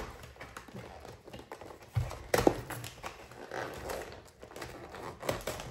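Cardboard Pokémon card box being handled and opened on a table: light rustling, with a dull knock about two seconds in and a sharp click just after.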